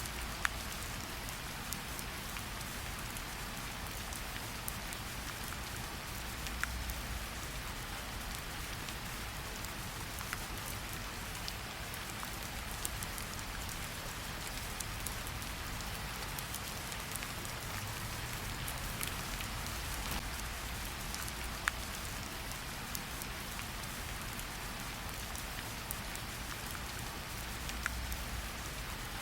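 Steady rain: an even hiss with many scattered sharp ticks of single drops, and a soft low rumble that swells a few times.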